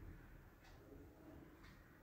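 Near silence: room tone with a faint tick about once a second.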